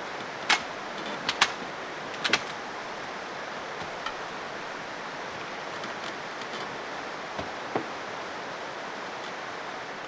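Sharp clicks and knocks of rooftop-tent and ladder hardware being handled while campers set up tents on their trucks, over a steady rushing noise. The loudest clicks come in the first two and a half seconds, with two softer ones near eight seconds.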